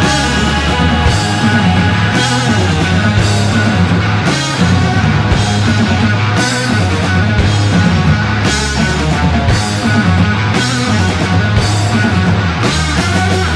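Rock music with bass and a steady drum beat.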